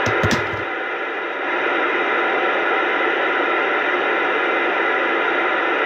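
CB radio on 27.285 MHz AM giving a steady hiss of static through its speaker, with no voice on the channel. Two brief pops come just after it starts.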